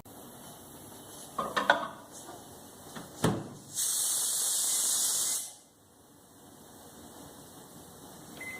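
Pressure cooker on an induction stove letting out a loud hiss of steam for about a second and a half, after a few clicks and a knock: the dal and vegetables inside have finished cooking under pressure.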